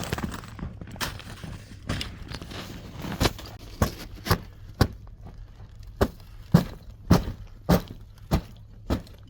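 Ice cracking and crunching in a run of sharp snaps, about two a second, the strongest near the middle and toward the end.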